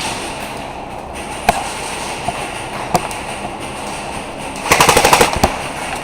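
Airsoft gun firing: single shots about one and a half seconds in and about three seconds in, then a rapid full-auto burst lasting under a second near the end.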